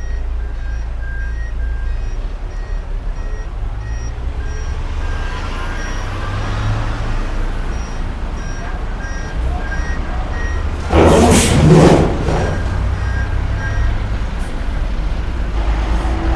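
Heavy diesel machinery running at a steady low rumble, with a backup alarm beeping repeatedly. About eleven seconds in, a loud burst of air hiss lasts roughly a second.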